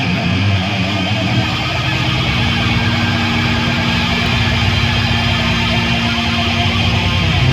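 Rock music with distorted electric guitar.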